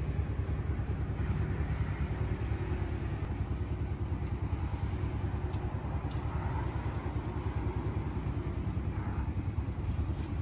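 A steady low rumble of an engine running, with a few faint clicks over it.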